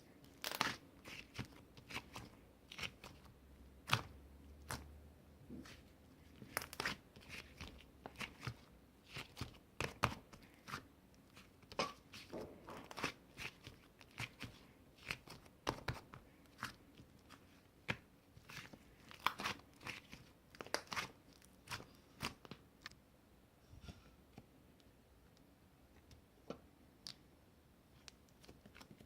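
Irregular crunching and crinkling sounds close to the microphone, sharp short clicks coming a few at a time with brief gaps between.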